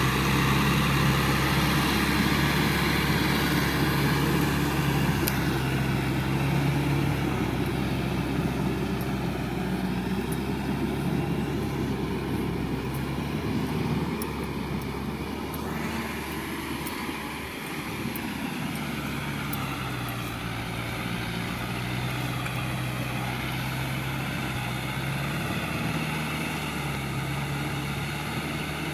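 Kubota M6040SU tractor's diesel engine running steadily under load as it pulls a rotary tiller through flooded paddy mud. The sound drops somewhat in level after the middle.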